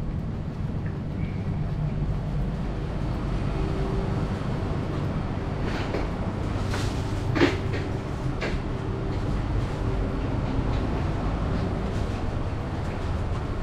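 Steady low hum inside a stationary airport Skytrain people-mover car waiting at its platform, with a faint steady tone joining in for several seconds. A few sharp clicks and knocks come between about six and eight and a half seconds in, the loudest a little past seven seconds.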